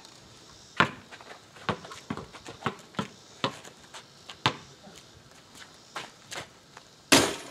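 A basketball bounced on an asphalt driveway, the louder bounces coming about once a second, with lighter knocks of footsteps between. Near the end there is a loud clatter as the shot strikes the backboard and rim.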